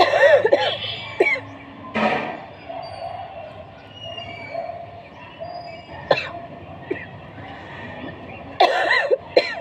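A woman coughing: a hard fit of coughs at the start, single coughs about one, two and six seconds in, and another fit near the end. It is a chesty cough from a cold with fever and a sore throat.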